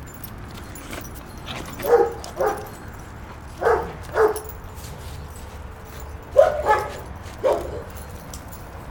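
Puppy barking in play while wrestling with another puppy: about seven short, sharp barks, mostly in quick pairs, spread across several seconds.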